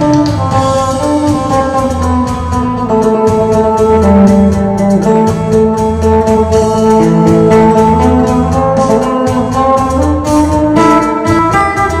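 Isan phin (Thai lute) plucked in a lam phloen melody over a backing track of sustained organ-like chords and a steady low beat.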